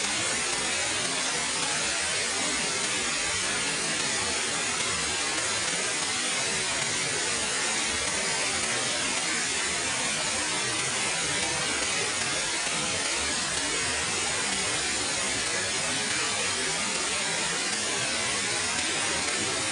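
Waterfall rushing: a steady, even roar of falling water that doesn't let up.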